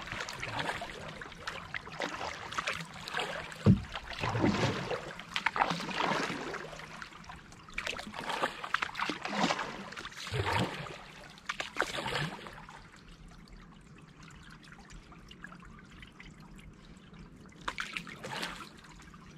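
Canoe paddle strokes: water splashing and dripping off the blade roughly once a second, with one sharp knock a little under four seconds in. The strokes stop about twelve seconds in, leaving quiet water, and one more stroke comes near the end.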